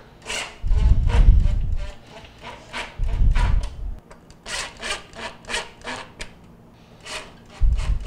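Cordless drill/driver running in short runs of about a second, three times, as it drives screws into the plastic ice-dispenser housing. Between the runs there is clicking and scraping from the screws and the housing being handled.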